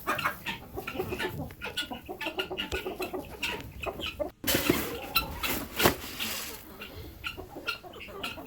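A poultry flock of chickens and guinea fowl, clucking and calling in many short, harsh calls. The sound cuts out briefly about four seconds in, then comes back louder for a couple of seconds.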